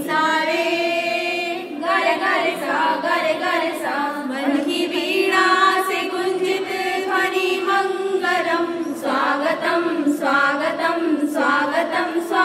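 Group of five women singing a song together into one microphone, their voices held in long sung lines.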